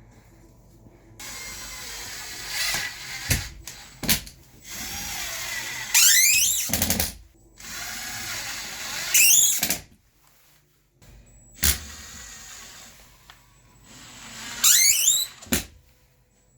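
Power drill run in several short bursts, its whine rising sharply in pitch each time it spins up, with a few sharp knocks in between.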